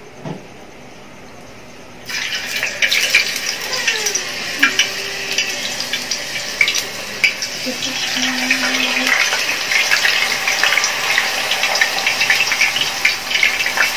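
Thin potato slices frying in hot oil: a sudden sizzle starts about two seconds in as the first slices hit the oil, then steady sizzling and crackling as more slices are added.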